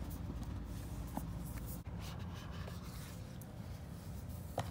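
Packaging being handled during an unboxing: soft scraping and rubbing, with a few light clicks, the sharpest near the end, over a steady low hum.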